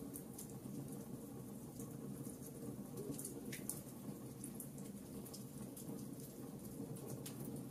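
Wood logs burning in a fireplace: a steady low rush of flame with frequent small, sharp crackles and pops, one louder pop about three and a half seconds in.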